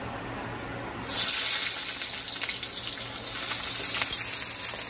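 Onion chunks tipped into hot sesame and vegetable oil in a wok, sizzling loudly. The sizzle starts suddenly about a second in and carries on steadily with light crackling.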